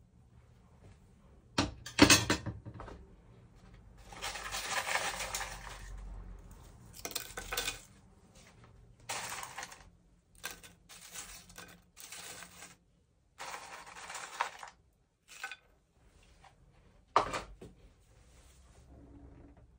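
Metal tongs clack against a ceramic plate, loudest about two seconds in, followed by several stretches of dry rustling and crackling as fried plantain chips are laid on the plate. A sharp clink of utensil on the plate comes near the end.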